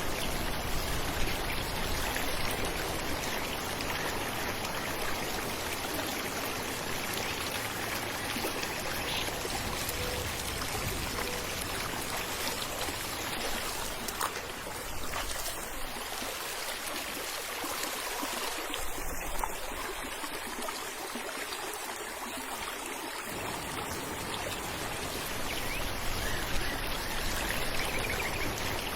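Falling water splashing and running steadily in a continuous rush. Its deeper part drops away for several seconds past the middle.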